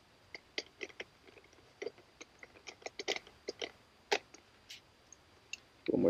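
Small camera-handling noises from a Nikon D90 DSLR body and lens as a lens is fitted onto the mount: faint, irregular clicks and taps, with one sharper click a little after four seconds in.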